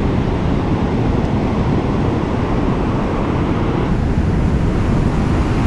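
Steady ocean surf washing up a sandy beach, mixed with wind rumbling on the microphone.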